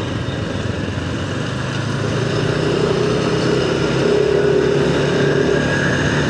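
Motorcycle engine running steadily while riding, growing a little louder about two seconds in.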